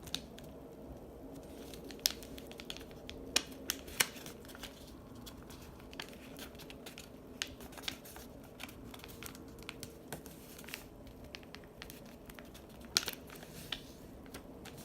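A sheet of paper being folded and creased by hand, with scattered crisp crinkles and sharp snaps of the paper, a few louder ones about two and four seconds in and again near the end.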